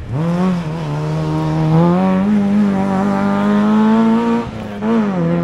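Rally car engine at high revs under hard acceleration: the note climbs in pitch and holds high, with a short break and re-rise about four and a half seconds in.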